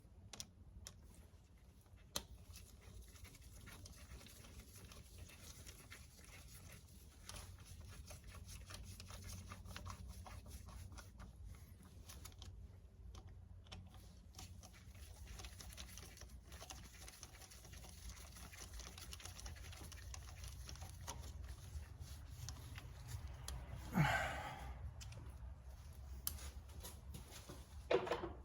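Quiet hand-tool work on an engine: faint clicks and scrapes of a quarter-inch socket and metal parts over a low steady hum, with one louder knock about 24 seconds in.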